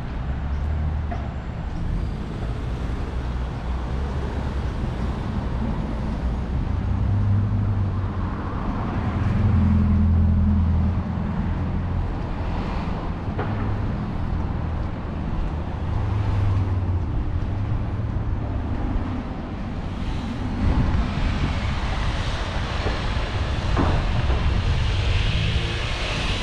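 Street traffic: cars passing with a low engine rumble and tyre noise, swelling and fading as each vehicle goes by.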